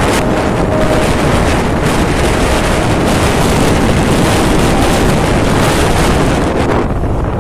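Loud, steady wind rush on the microphone of a moving motorcycle, with the bike's running and road noise beneath it.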